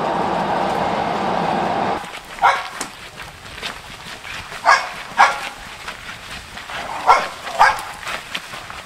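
Steady rumble of a train running, heard from inside the carriage, cutting off about two seconds in. Then a dog barking, single sharp barks a second or two apart.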